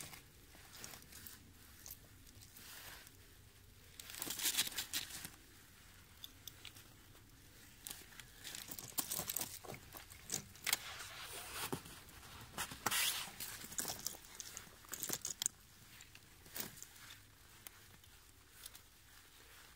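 Steel snow chain being handled and fitted around a car tyre in snow: irregular crunching and rustling of packed snow with rattling of the chain links, in uneven bursts that are busiest in the middle.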